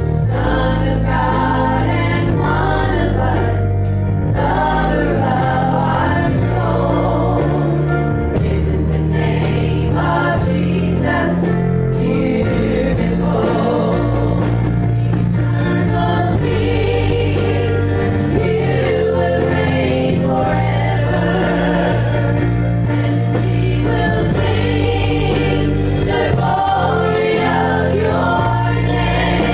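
Gospel worship song sung by a group of voices together, over instrumental accompaniment with a sustained bass line.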